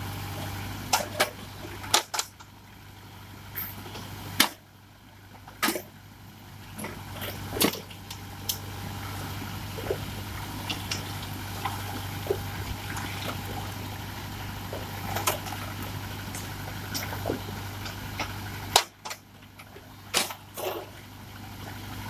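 Diesel tractor engine running steadily while a backhoe bucket digs into brick and concrete rubble, with many sharp knocks and clatters of broken bricks and stones. The engine hum drops away briefly a few times.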